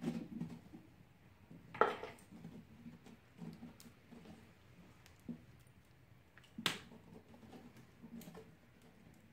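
Hand scraping and scooping the flesh out of the inside of a whole pumpkin, soft wet scrapes with two sharper, louder scrapes about two seconds in and again near seven seconds.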